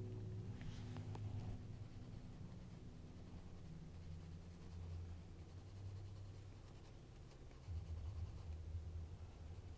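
Coloured pencil scratching softly on sketchbook paper as a drawing is shaded in.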